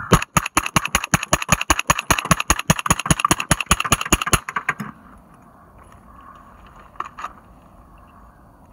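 Honey Badger rifle fired in a rapid string of shots, about six a second, that stops about four and a half seconds in. Two light clicks follow near seven seconds.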